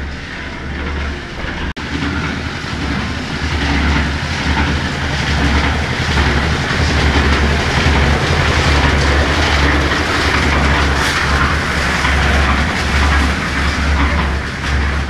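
Wind buffeting the microphone and a steady rattling rumble while riding a bicycle over a rough road.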